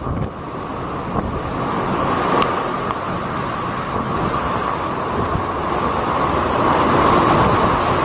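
Hurricane-force wind and driving rain blowing steadily, with wind buffeting the phone's microphone, growing a little louder toward the end.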